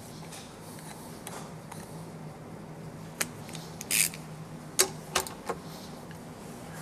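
A few sharp metal clicks and clinks from hand tools as the WerkMaster's drivetrain bolts are torqued down, one a brief longer metallic rasp, over a steady low hum.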